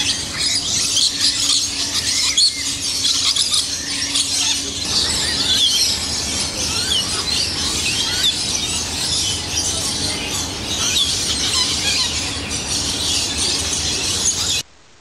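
A flock of lories chattering and screeching: many shrill, overlapping calls with quick rising and falling chirps, stopping abruptly near the end.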